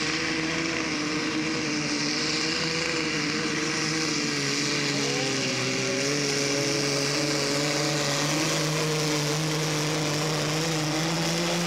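Pulling tractor's engine running flat out at a nearly steady high pitch under full load as it drags the weight-transfer sled down the track, with a slight rise in pitch about halfway through.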